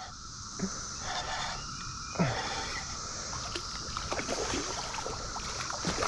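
Hooked carp splashing at the surface, with scattered splashes and clicks, over the steady buzzing drone of a Brood X periodical cicada chorus.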